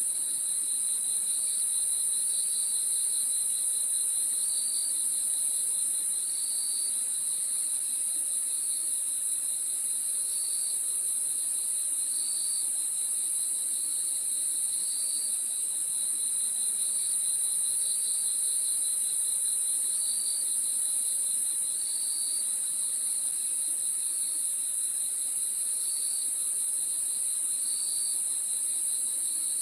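Crickets chirping in a night chorus: a steady high-pitched trill with a lower, rapidly pulsing chirp beneath it, marked by a short higher note that repeats about every two seconds.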